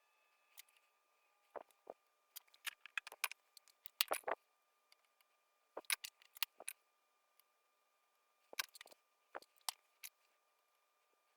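Scattered small clicks and taps of tools and parts being handled during bench soldering on a receiver's circuit board, in small clusters with quiet gaps between.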